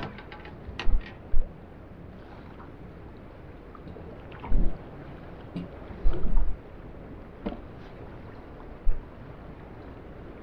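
Wind buffeting the microphone and sea water slopping against the hull of a small boat drifting on open water, with several short low thumps. A few sharp clicks and knocks of handling come in the first second or so.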